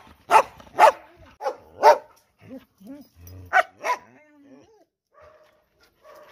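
Dogs barking in sharp single barks, four in quick succession over the first two seconds and two more about three and a half seconds in, with quieter short whines between them.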